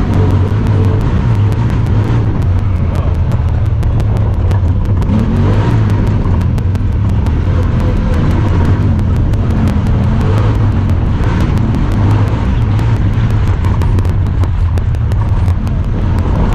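Honda Talon 1000R side-by-side's parallel-twin engine running steadily under way, with a low drone. A rapid, regular ticking runs through it, a noise that comes from the camera, not the machine.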